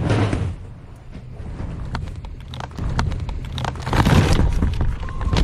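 Giant devil's toothpaste reaction erupting out of a tall tower: a steady deep rumble with many sharp pops and splatters over it, getting louder about four seconds in.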